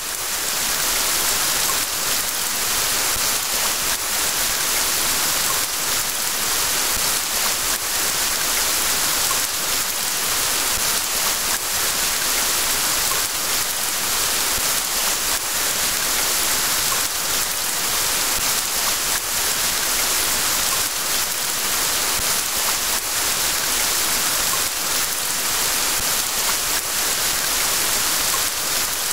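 Steady rain falling, an even hiss that swells in over the first second and then holds constant.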